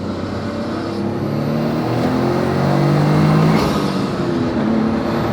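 Toyota GR Corolla's turbocharged 1.6-litre three-cylinder engine, breathing through an HKS intake, pulling under acceleration while driving. Its pitch climbs slowly, drops about three and a half seconds in, then holds steady.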